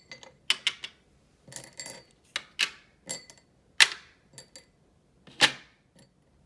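Pebbles and a shell being set down on a craft tray: about a dozen irregular hard clicks and small clatters, some with a brief ringing tail.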